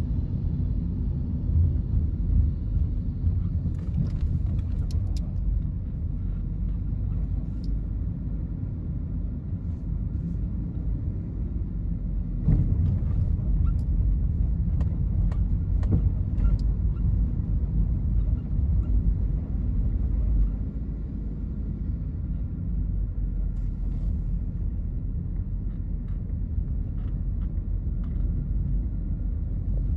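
Steady low rumble of a car driving: road and engine noise, with a few faint clicks.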